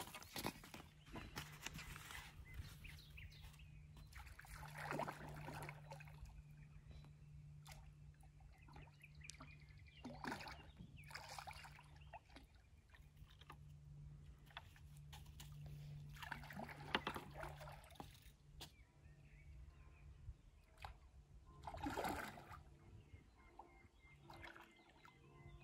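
Faint water splashing and sloshing in about half a dozen soft swells, over a steady low hum.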